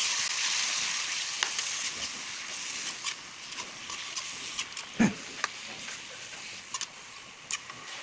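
Sliced pork sizzling in a hot pan as a metal ladle stirs it, with scattered clicks and scrapes of the ladle against the pan and one sharper knock about five seconds in. The sizzle slowly dies down.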